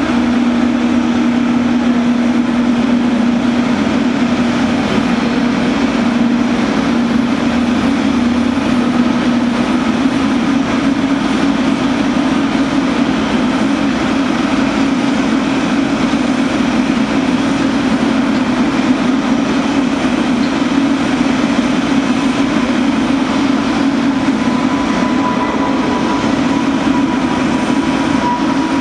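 Boeing 777-300ER's GE90-115B turbofan engines running, a loud steady noise with a low hum, and a thin whine coming in near the end.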